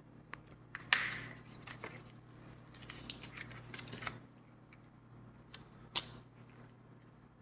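Handling noise: a few sharp clicks, the loudest about a second in, with rustling from about one to four seconds and two more clicks near six seconds.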